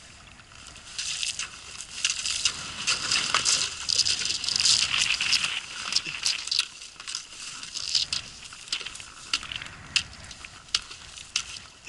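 Thin ice being broken up from a boat: a dense run of cracking, crunching and clinking ice pieces, then scattered sharp cracks and clinks toward the end.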